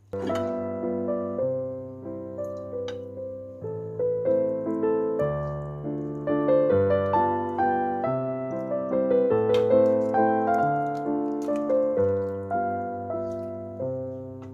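Background piano music: a melody of struck notes, each fading, over held low bass notes.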